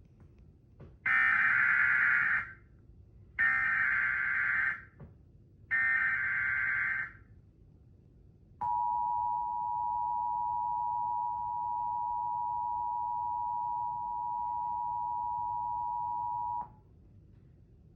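Emergency Alert System broadcast alert: three bursts of SAME header data tones, each about a second and a half long, then the EAS attention signal, a steady two-tone sound (853 and 960 Hz played together) held for about eight seconds, which cuts off suddenly.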